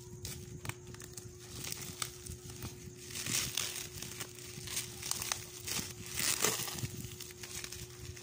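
Bubble wrap and plastic wrapping crinkling and rustling as hands pull at it to unwrap a package. The sound is busiest from about three seconds in until near the end. A faint steady hum runs underneath.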